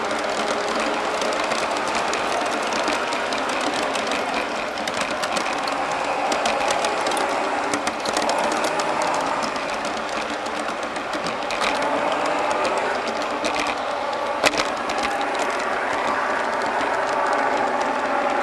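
G-scale model train running along garden track, heard from on top of one of its boxcars: a steady whirring hum from the locomotives' motors and the rolling wheels, with scattered light clicks from the wheels on the rails and one sharper click about fourteen seconds in.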